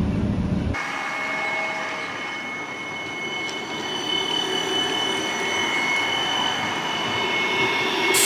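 A CAF Urbos streetcar approaching on street track: a steady high-pitched whine over a rushing hum. It grows much louder, with a bright hiss, as the car passes close near the end.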